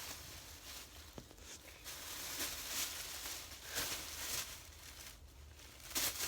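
Irregular rustling and shuffling as hands rummage through a bag of squishy toys.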